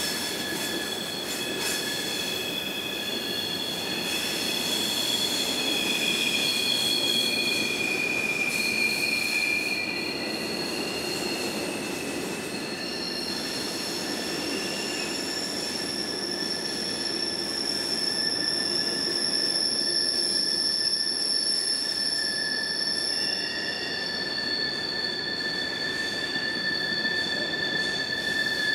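Freight train of boxcars rolling through a curve, its wheels squealing: several high-pitched squeals that come and go over a steady rolling rumble. The squeal is wheel flanges grinding against the rail on the curve.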